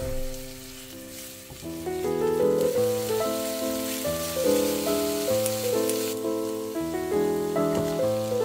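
Diced onions sizzling in hot vegetable oil in a frying pan as they are stirred with a spatula; the sizzle thins out about six seconds in. Background music plays throughout.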